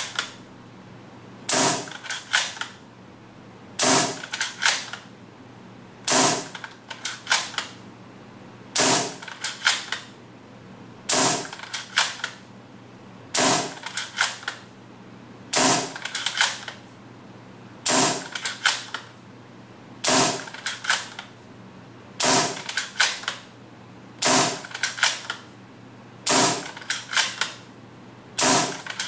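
Action Army AAC-01 green-gas bolt-action airsoft sniper rifle fired single shot after single shot for a chronograph velocity test. Each sharp shot comes with a few clacks of the bolt being worked, about once every two and a quarter seconds, around thirteen shots in all.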